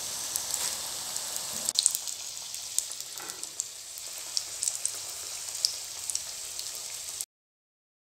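Breadcrumb-coated mutton cutlets deep-frying in hot oil in a pan: a steady sizzle with scattered crackles and pops, cutting off abruptly near the end.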